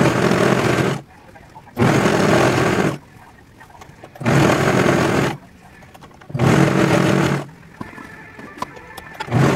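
Serger (overlock sewing machine) running in short bursts of about a second each, five times, stopping briefly in between as fabric is fed through.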